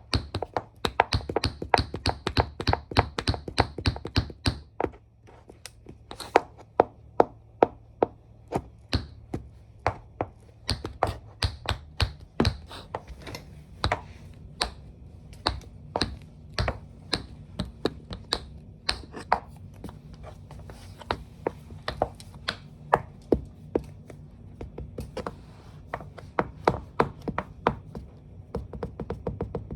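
Tap shoes clicking on a hard floor in irregular runs of taps, quick and dense for the first few seconds, then more spaced out, over a faint low hum.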